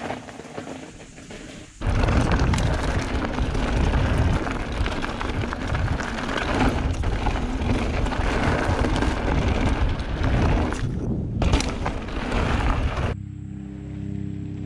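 Heavy wind rumble buffeting a handlebar-mounted action camera's microphone as a mountain bike rides fast down a dirt trail. It starts abruptly about two seconds in and gives way to background music with steady tones near the end.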